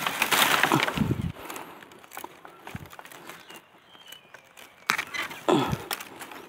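Rustling and crunching of dry leaves and undergrowth while bamboo shoots are picked, loudest in the first second, quieter after, with a second short burst about five seconds in.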